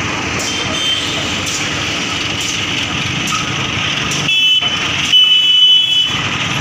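Diesel engine of a mobile crane running close by as it moves along the street, with a vehicle horn sounding twice: a short blast about four seconds in and a longer one about a second later.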